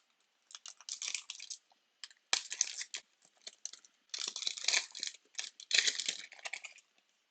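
Foil wrapper of a trading card pack crinkling and tearing as it is ripped open by hand, in four bursts of crisp rustling.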